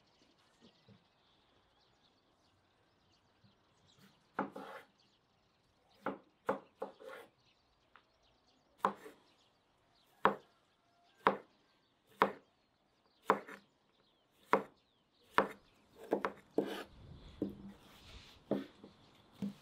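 Broad-bladed knife chopping a cucumber on a wooden cutting board: sharp separate chops of the blade striking the board, starting a few seconds in, about one a second, and coming quicker near the end.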